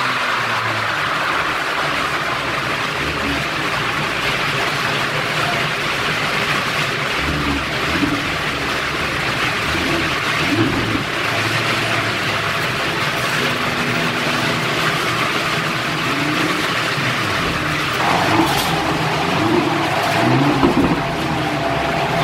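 Audi R8 V10 Plus's naturally aspirated 5.2-litre V10 running steadily on a chassis dyno, not revving, under a constant rushing noise. A thin steady whine joins in about eighteen seconds in.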